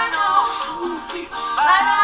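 A song playing, with a sung lead vocal that sweeps up into a new phrase near the end.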